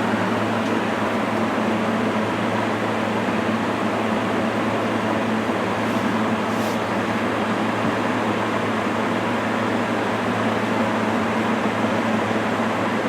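Vintage Zayre 20-inch box fan with a Hunter motor running steadily on medium speed, set to intake: a constant rush of air over a steady motor hum.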